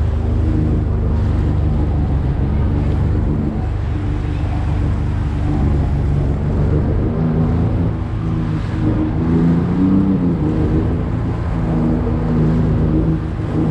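Sea-Doo GTI 130 jet ski's engine running under way, its pitch stepping up and down several times as the throttle changes, over the rush of water off the hull.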